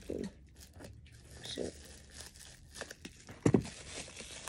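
Plastic mailer packaging rustling, crinkling and tearing as it is worked open by hand. A short dull thump comes about three and a half seconds in.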